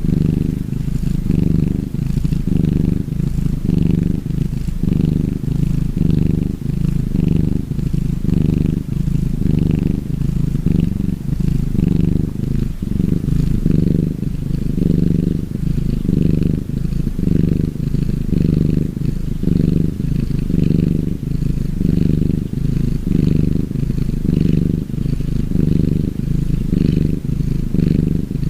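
Gray tabby cat purring steadily and loudly, the purr swelling and easing with each breath about once a second.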